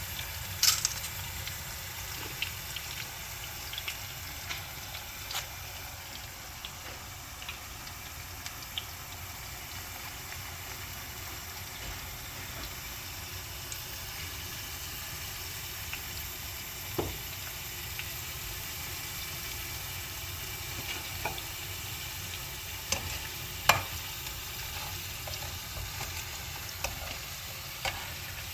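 Chilaquiles, tortilla chips and salsa, cooking in a pan: a steady sizzle, with scattered sharp knocks and clicks of a utensil stirring against the pan.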